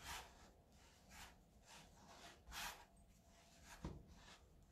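Faint, soft rubbing and pressing of hands kneading a floury dough on a wooden board, in irregular strokes about a second apart.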